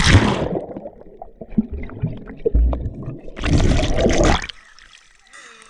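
Splash as the camera's microphone plunges into seawater, then muffled underwater gurgling with scattered bubble pops and thumps. About three and a half seconds in there is a second loud rush of water for about a second, then quieter open-air sound near the end.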